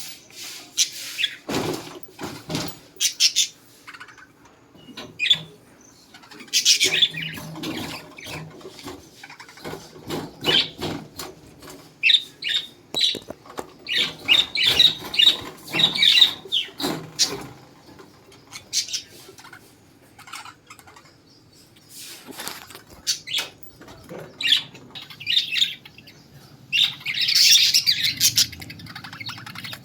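Pet lovebirds chirping and screeching in repeated bursts of sharp, high-pitched calls with short pauses between: their morning calling.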